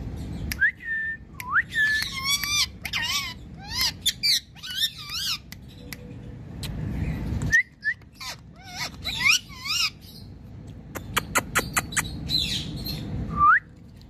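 Rose-ringed parakeet (Indian ringneck) calling: short whistles that rise in pitch and quick warbling chirps that go up and down, with sharp clicks between the calls.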